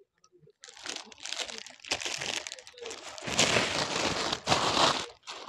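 Plastic wrapping crinkling and rustling as it is handled, starting about a second in and loudest in the last two seconds.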